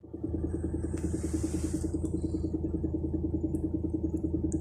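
UAZ Bukhanka van running with a fast, even knocking beat from somewhere underneath, an intermittent knock that the owner cannot trace. A short hiss joins in about a second in.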